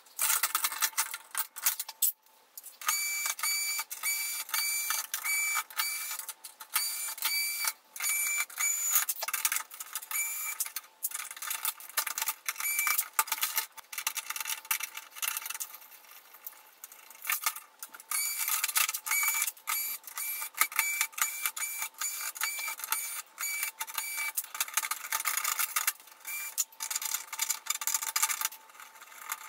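Fast-forwarded sound of electronics being dismantled: a rapid, continuous stream of clicks, knocks and clatter of tools and parts, broken by many short, high repeated whines.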